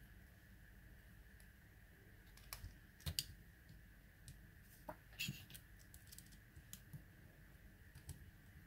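Scattered small clicks and taps of a mini quadcopter's plastic frame and parts being handled, with the sharpest cluster about three seconds in and a few more around five seconds, over a faint steady hum.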